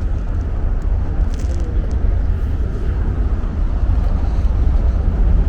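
Wind buffeting the small camera's microphone in a snowstorm: a loud, uneven low rumble.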